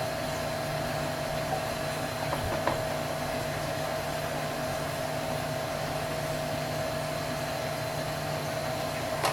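Steady hum of a running electric motor with a constant mid-pitched whine and a low drone, unchanging throughout; a couple of faint clicks about two and a half seconds in.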